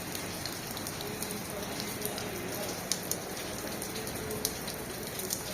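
Heavy rain falling steadily, a dense hiss of rain on surfaces with scattered sharper drop taps.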